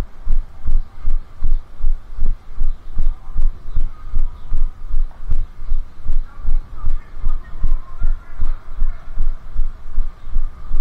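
A runner's footfalls thudding through a body-worn camera, about three low thumps a second at a steady running cadence.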